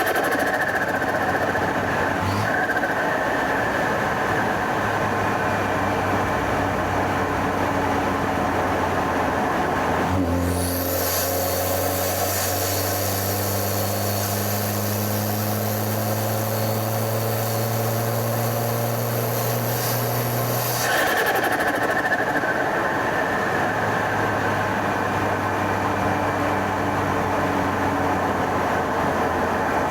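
BMW N20 turbocharged four-cylinder running at a steady cruise, then from about ten seconds in pulling for around ten seconds, its pitch climbing slowly with a loud high hiss from the open intake, before easing back to a steady cruise.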